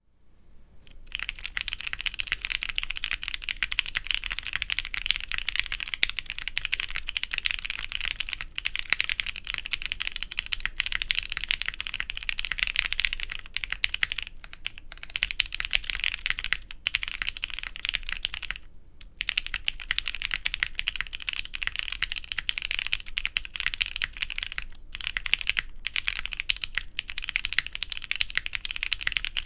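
Fast, continuous typing on a Studio Kestra Nue plateless 60% mechanical keyboard with JWK Alpaca linear switches, a muted clacking that starts about a second in, with a few short pauses. The Alpaca stems are loose, which the owner says can make a couple of keys tick.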